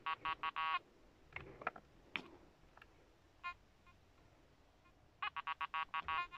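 Nokta Anfibio Multi metal detector giving its target tone: a quick run of short beeps at the start and a longer run near the end, as soil is held near the search coil. The beeping is the detector signalling a metal target close to the coil.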